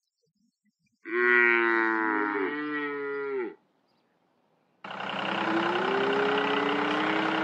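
A cow moos once, a long call about a second in. About five seconds in, a steady engine running sound starts.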